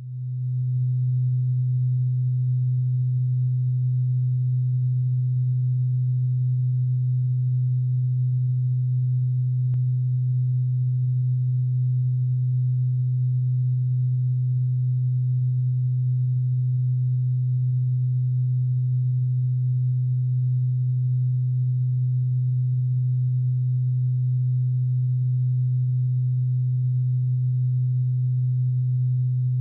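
A steady low electronic tone, a single pure pitch that fades in over the first second and then holds unchanged.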